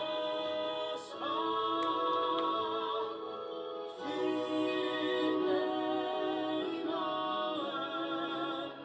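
A song in Danish played through a TV's speakers: sung melody in long held notes with orchestral backing, in phrases that break about a second in, at four seconds and at seven seconds.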